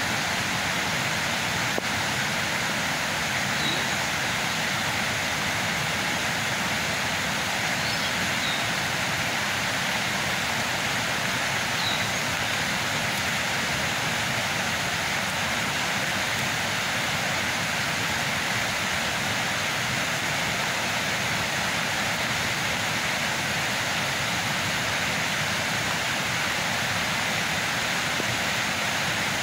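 A steady, even rushing noise that holds one level throughout, with a few faint high chirps about four, eight and twelve seconds in.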